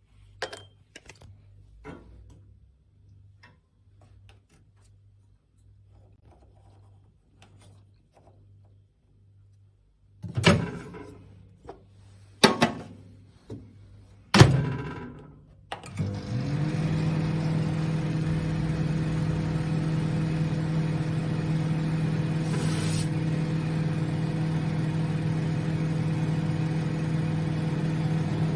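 Sharp YC-QG254AU-B flatbed microwave oven: a few faint clicks, then three loud knocks about ten to fifteen seconds in, then the oven starts and hums steadily with a low electrical drone for the rest of the time.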